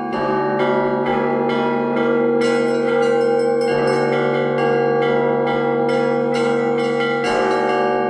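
Church bells ringing: several bells struck in turn, their tones overlapping and ringing on over a deep, steady bell tone.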